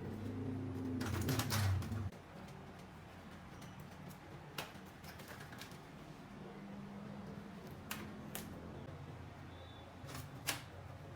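Scattered sharp clicks and light metallic taps, about six of them, from tools and small engine parts being handled during a workbench teardown. A low hum stops abruptly about two seconds in.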